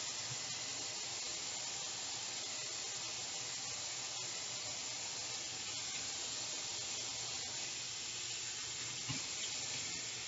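Tap water running steadily into a sink, a even hiss, with a few faint ticks and a soft bump about nine seconds in.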